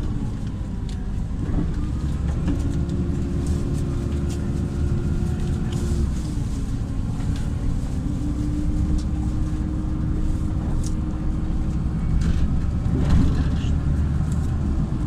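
LiAZ 5292.67 city bus under way, heard from inside the cabin: its YaMZ-53624 natural-gas engine and driveline give a steady low rumble with a whine that steps and shifts in pitch several times, over scattered rattles and clicks from the body.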